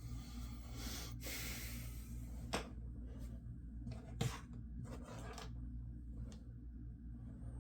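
Handling sounds: a brief rustle and a few light, sharp clicks and taps over a steady low hum.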